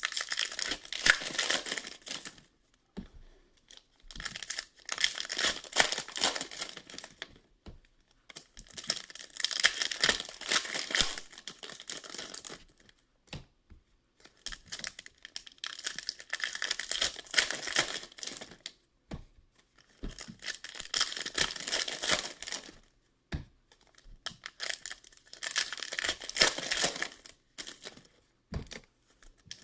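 Hockey card packs being torn open one after another, the foil wrappers tearing and crinkling in repeated bursts a few seconds apart.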